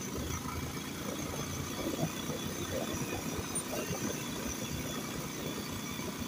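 Motorcycle engine running steadily while riding over a rough, unpaved road, with irregular low thumps and jolts from the bumpy surface.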